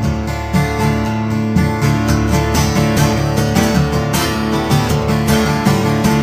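Instrumental passage of a country song, led by strummed guitar, with no singing.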